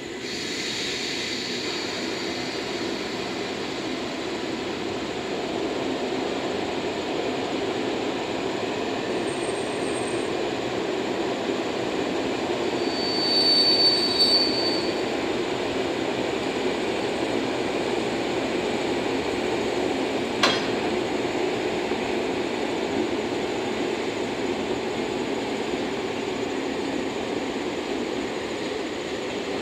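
EF67 electric locomotive rolling slowly during shunting, a steady running rumble. A brief high-pitched squeal comes about 13 to 15 seconds in, and a single sharp click about 20 seconds in.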